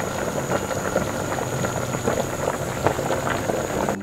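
A large pot of nihari, a spiced meat-and-bone curry, boiling hard. The broth gives a dense, steady bubbling and popping.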